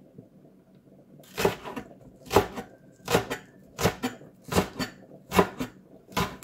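Cleaver chopping spring onions on a wooden cutting board: seven sharp knocks, about one every three-quarters of a second, starting about a second and a half in.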